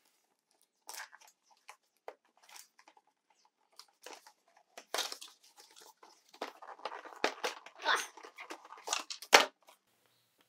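A small cardboard box is opened by hand without a knife: fingernail scratching and picking at the sealed flap, with scraping and tearing of card. Then cardboard and plastic packaging rustle and crackle as a clear plastic case is drawn out, with a sharp snap near the end.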